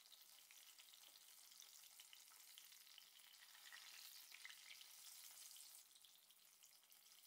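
Masala-coated pomfret shallow-frying in hot oil: a faint, steady sizzle with small crackles. It grows a little louder in the middle as the fish is turned over, then settles back.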